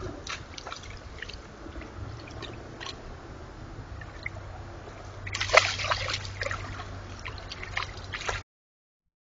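White-tailed deer stepping and feeding in wet ground and brush: scattered sloshing and crackling, with a louder burst about five and a half seconds in, over the trail camera's steady low electrical hum. The sound cuts off about a second before the end.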